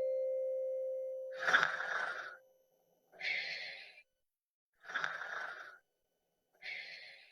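A fading keyboard note dies away, then four short breathy hissing bursts follow, each under a second long and evenly spaced with silence between.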